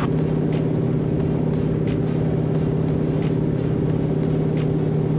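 Steady drone of a de Havilland Beaver's engine and propeller heard inside the cabin on final approach, with no change in pitch. Faint background music with a soft beat runs underneath.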